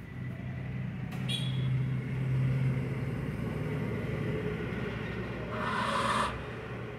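Robot DC gear motors whirring with a steady low hum as the robot is driven by remote control. There is a click a little over a second in, and a short hiss about five and a half seconds in that lasts under a second.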